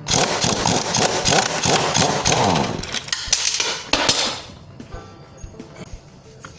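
Rapid metallic clicking of a tool undoing the Yamaha Cygnus X's exhaust-pipe mounting bolt. It lasts about four and a half seconds, then drops to a few faint clicks and handling noises.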